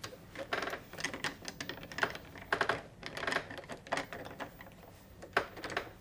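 Hand screwdriver turning the fixing screw that holds a LOQED lock cylinder in the door, making a run of small, irregular clicks.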